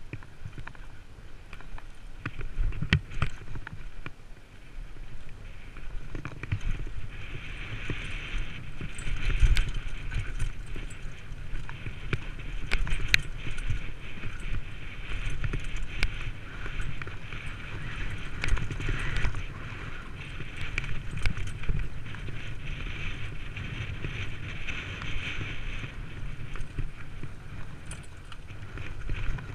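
Downhill mountain bike descending a rough dirt and stone trail: tyres rumbling over the ground, with frequent sharp knocks and rattles from the bike as it hits bumps.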